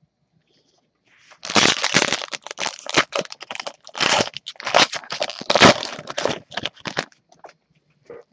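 A foil Panini Prizm basketball card pack wrapper being torn open and crinkled in the hands: a dense run of crackling that starts about a second and a half in and dies away about seven seconds in.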